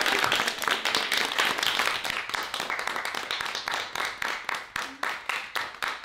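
Several people clapping together, dense at first, then thinning to a steadier beat of about five claps a second and fading, with a few cheering voices in the first second.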